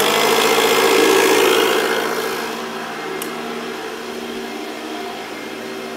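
Slime plug-in tire inflator compressor running steadily, pumping up a pickup truck tire from 20 PSI. Its buzzing motor is loudest for the first couple of seconds, then settles a little quieter.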